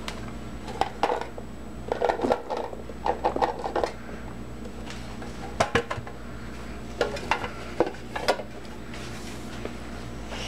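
Small plastic toy figures clattering and clicking as they are handled, tipped out of a box and dropped into a wooden tray, in irregular bursts with a few sharp clicks near the middle.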